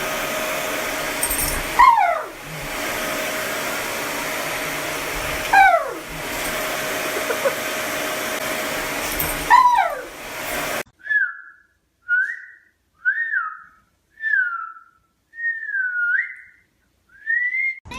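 A steady blower-like rushing noise with three loud falling whines cutting through it, each sliding down in pitch. It stops abruptly, and six short high whines follow, some rising and some falling, with silence between them.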